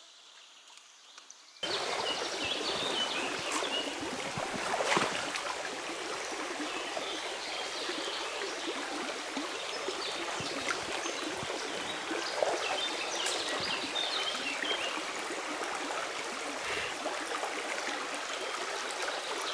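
Very quiet at first, then about a second and a half in a steady rush of a small river running over stones starts suddenly, with a few short knocks.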